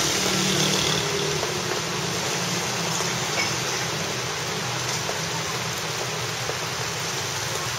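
Heavy rain pouring down steadily onto the umbrella canopy and the wet street, with the low hum of motorbike traffic underneath.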